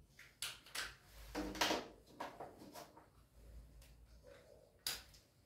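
Faint, short scrapes and taps of a marker writing on a whiteboard, about half a dozen strokes, the loudest near the middle and one near the end.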